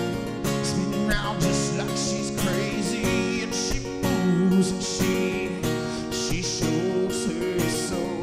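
Acoustic guitar strummed in a steady rhythm, with a man singing over it.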